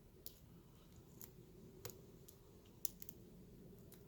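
A handful of faint, irregular metallic clicks as a lock pick probes and sets the pins inside a Squire 80 mm padlock, over a faint steady low hum.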